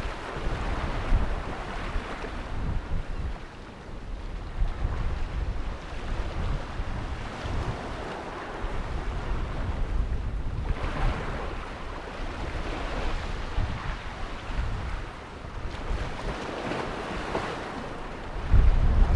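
Sea surf washing against shoreline rocks, with wind buffeting the microphone in low rumbling gusts. The surf swells about eleven seconds in and again near the end, and a strong gust of wind comes near the end.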